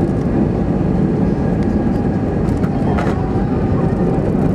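Cabin noise inside an Airbus A320-212 during the landing on the runway: a loud, steady rumble of engines, airflow and wheels.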